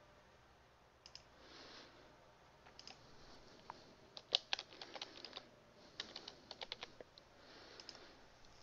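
Faint typing on a computer keyboard: a few scattered clicks, then quick runs of keystrokes about four to seven seconds in.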